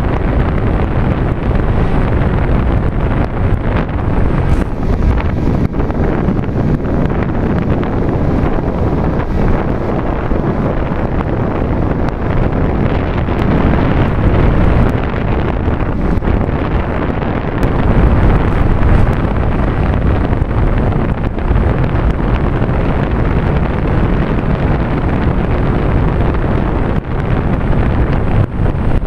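Steady rush of air buffeting the microphone of a camera carried on a flying FPV Raptor, an electric radio-controlled foam plane, with its motor and propeller running beneath the wind noise.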